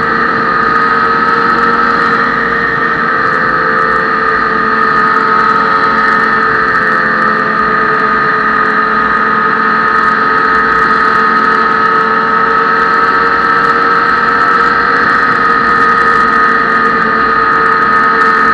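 Ski-Doo snowmobile engine running at a steady cruising speed, heard from on board the moving sled. The pitch holds level throughout, with no revving or easing off.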